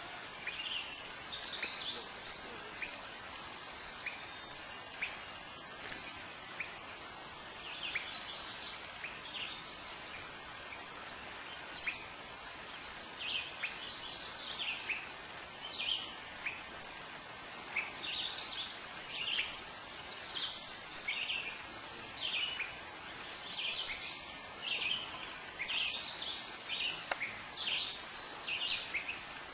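Songbirds singing: short, high chirping phrases repeated every second or two, more frequent in the second half, over a steady background hiss.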